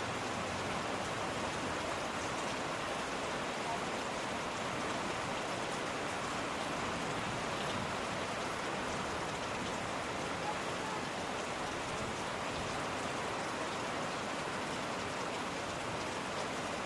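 Steady rain falling, an even hiss of many drops with no pauses or separate impacts.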